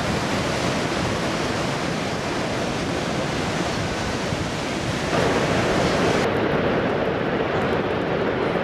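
Steady rushing of Niagara Falls' water plunging over the brink into the gorge. About five seconds in the sound turns fuller and lower, and a second later the highest hiss drops away.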